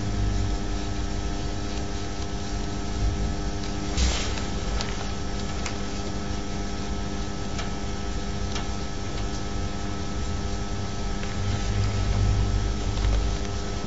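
Steady electrical hum with a low rumble, broken by a few faint ticks and a soft knock about four seconds in.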